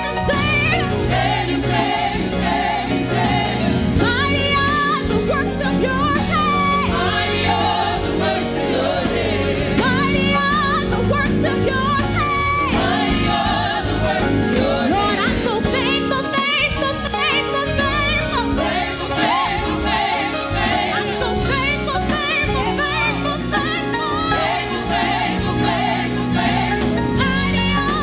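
Gospel choir singing with a lead singer over band accompaniment with keyboard. The low end of the accompaniment drops out briefly about halfway through.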